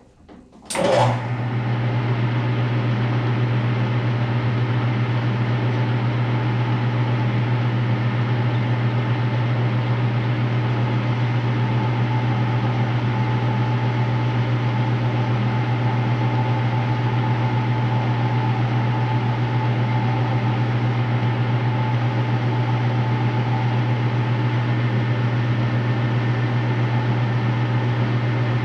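Gear-head metal lathe switched on about a second in, then running at a steady high-gear speed with a constant low hum while turning down the outside of a .22 rifle barrel.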